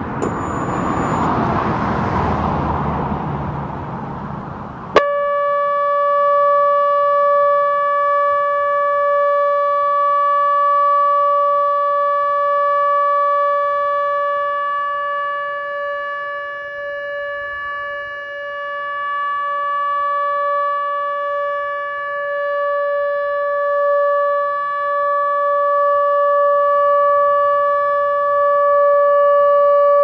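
An ATI HPSS-32 electronic siren switches on with a click about five seconds in, then sounds one steady, unbroken tone. This is the steady Alert signal of a nuclear-plant warning siren test. Before it starts, a rushing noise swells and fades.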